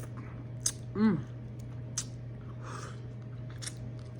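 Close-miked eating sounds of shell-on shrimp: a few scattered lip smacks and wet mouth clicks, with a short voiced sound about a second in, over a steady low hum.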